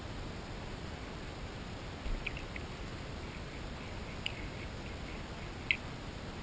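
Underwater recording with a steady hiss and a few scattered sharp clicks, the loudest near the end: grass carp cracking corn kernels and cat food pellets as they feed.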